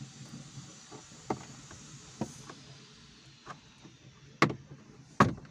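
Scattered light clicks and knocks of hand work on a car's interior trim, with two louder knocks near the end.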